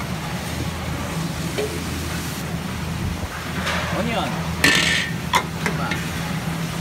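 Cooking pan with a metal utensil scraping and knocking against it once, about two-thirds of the way in, over a steady low hum.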